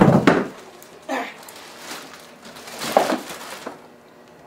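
Clear plastic bag crinkling and rustling as a bagged car seat is pulled up out of a cardboard box and set down. The loudest rustle comes at the start, with shorter bursts about a second in and about three seconds in.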